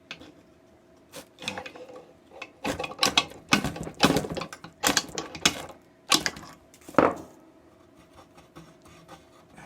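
Metal clanking and rattling as the freed crankshaft of a Duro K-255 pump is worked out of the crankcase and handled: a string of sharp knocks, densest and loudest between about three and seven seconds in.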